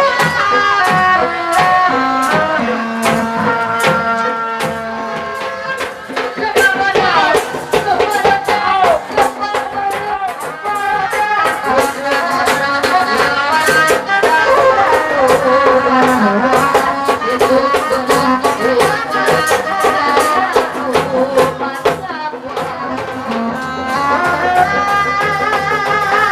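Traditional folk music: a melody instrument playing over quick hand-drum strokes, with a brief dip in the playing about six seconds in and again near the end.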